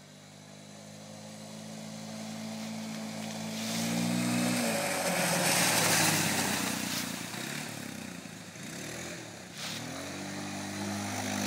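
Kymco 150 quad's single-cylinder four-stroke engine drawing closer and growing louder, then passing close about six seconds in with a rough hiss of its tyres sliding through dry leaves. Its engine note drops as it passes, then rises again as it revs moving away.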